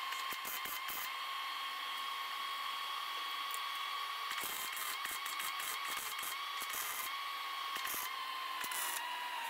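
Wire-feed welder arc crackling in short bursts as tack welds go onto a catalytic converter: one run of crackle in the first second, then several more from about halfway through to near the end. A steady high whine runs underneath.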